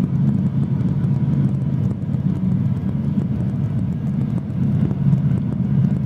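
Cabri G2 helicopter's four-cylinder Lycoming piston engine and rotor running steadily at reduced RPM after landing, held there to cool the engine down. It is a steady low drone, picked up through the intercom microphone.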